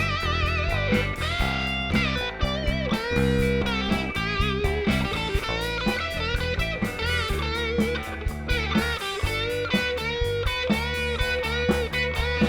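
Rock band playing an instrumental break: an electric guitar lead with bent, wavering notes over bass and a steady drum beat.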